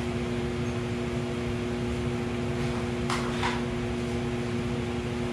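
Steady machine hum, like a running fan, holding two constant tones over a light hiss, with two faint short clicks about three seconds in.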